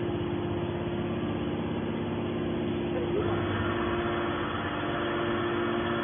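Hydraulic scrap metal baler running with a steady machine hum. A little past halfway the sound brightens and a brief low rumble comes in.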